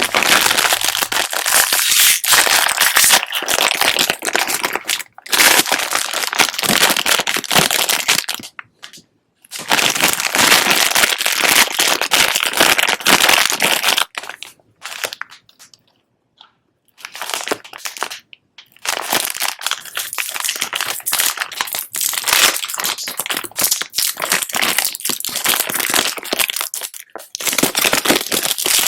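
Wrapper of a fizzy surprise egg crinkling and crackling as it is unwrapped by hand, in long bouts with a few short pauses.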